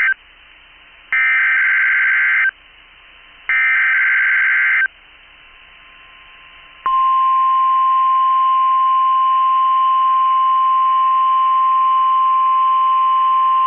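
NOAA Weather Radio SAME alert signal: the end of one digital header burst, then two more buzzing data bursts about a second and a half long each, marking the start of a Required Weekly Test. About seven seconds in, the steady single-pitch 1050 Hz warning alarm tone starts and holds.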